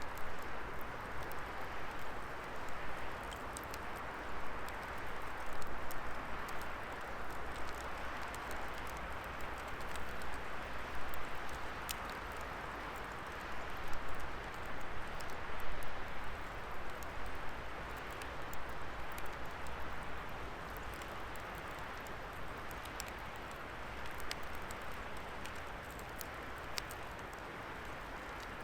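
Wood fire burning in a fire pit: a steady hiss of flames with many scattered sharp crackles and pops from the burning wood.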